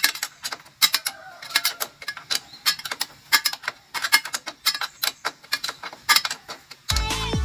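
Ratchet wrench clicking steadily, about three clicks a second, as the lower bolt of a YOKO rear shock absorber is tightened. Bass-heavy electronic music comes back near the end.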